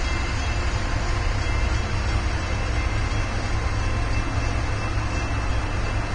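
Large passenger ferry's engines running with a steady low rumble as the ship passes close by, with an even rushing noise over it.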